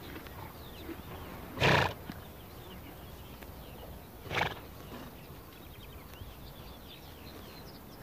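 Przewalski's horse snorting through its nostrils twice: a loud, short blow about two seconds in and a softer one about halfway through. Faint chirping runs behind them.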